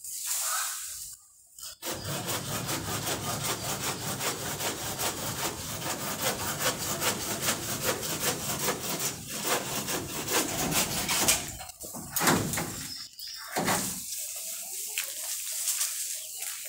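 Hand saw cutting through a woody orange jasmine (kamini) branch in quick, steady back-and-forth strokes. About two-thirds of the way through, the sawing stops and a couple of louder knocks follow.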